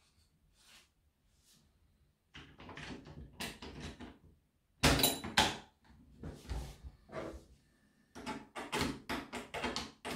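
Plastic starter cover of a Husqvarna chainsaw being fitted back onto the saw body: a series of hard plastic knocks and clatter, loudest twice about five seconds in, then a quick run of clicks near the end.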